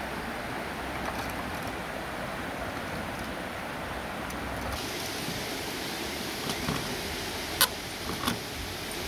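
Steady rush of running water, with two sharp metallic clinks near the end as a pipe wrench and brass fitting are handled.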